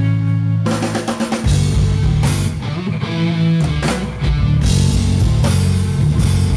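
Live amplified rock band playing an instrumental stretch between vocal lines: a held electric guitar chord breaks into a quick drum fill about a second in, then drums, bass and electric guitar play on together.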